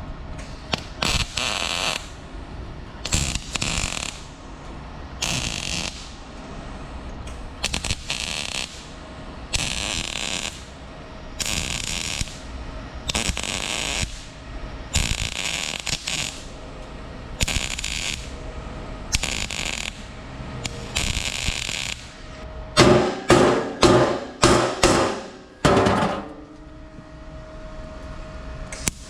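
Welder laying short stitch welds on exhaust tubing: repeated bursts of crackling hiss, each under a second long and about two seconds apart. Near the end, a louder run of rapid, rattling pitched bursts from another tool.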